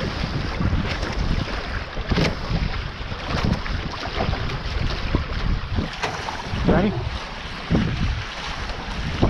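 Wind buffeting the camera microphone over the rush of water along a Taipan 5.7 catamaran's hull under sail, with a few brief splashing surges.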